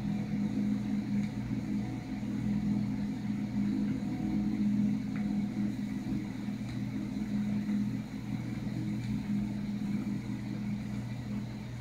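A steady low hum with a faint hiss over it, holding level throughout.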